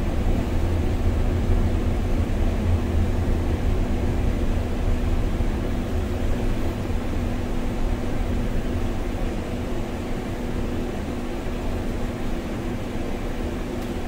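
Cab noise of a MAN Lion's City gas-engined city bus under way: the steady low rumble of the biogas engine and tyres on the snowy road, with a steady hum above it. It eases slightly toward the end.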